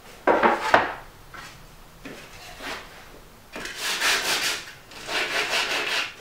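A plywood panel slid and set down on a stack of panels, then a small hand sanding block rubbed back and forth along the plywood's edge in two runs of quick strokes, lightly sanding and chamfering the edges before glue-up.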